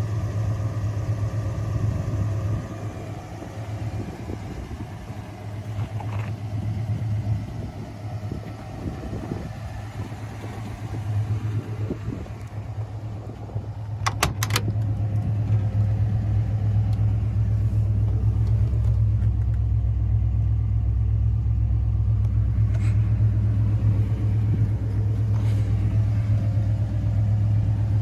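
1991 Jeep Grand Wagoneer's AMC 360 V8 idling steadily, a low even rumble that grows louder about halfway through, with a couple of sharp clicks just then.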